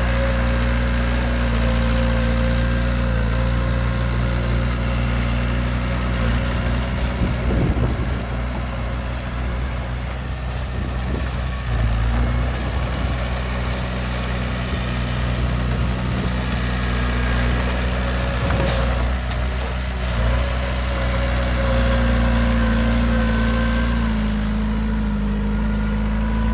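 Heavy diesel engine of earthmoving machinery running steadily at low revs, with a few brief knocks.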